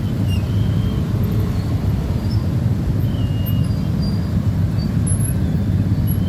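Steady low rumble of a passing train, with a few brief high squeaks over it.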